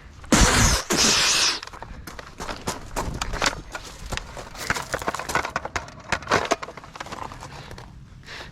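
Footsteps crackling over dry ground, irregular crunches for several seconds, after a loud hissing burst lasting about a second near the start.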